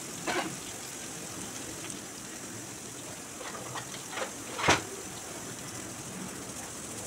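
Chopped onions, green chillies and curry leaves frying in hot oil in a pan: a steady sizzle with a few sharp crackles, the loudest about two-thirds of the way through.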